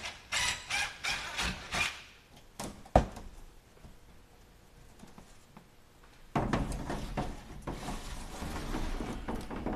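Cut-out section of old fiberglass RV roof skin being pried and peeled up off the roof: a quick run of scrapes and knocks, a sharp knock about 3 seconds in, then from about 6 seconds a long scraping, rustling rub as the sheet is pulled free.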